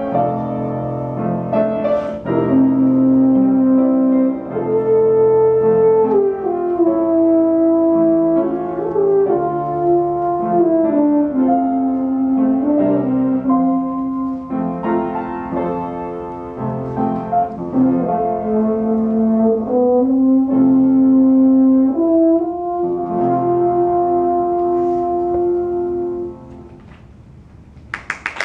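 French horn playing a slow, lyrical melody of long held notes over piano accompaniment, closing on a long sustained final note that stops about 26 seconds in and dies away.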